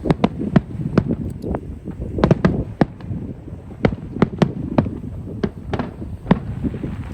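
Aerial firework shells bursting overhead: an irregular rapid series of sharp bangs over a low rumble.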